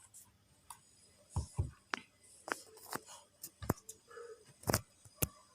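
Irregular clicks and knocks, about ten in all, with faint rubbing between them: a 3.5 mm audio jack cable being handled and plugged into the phone, close to its microphone.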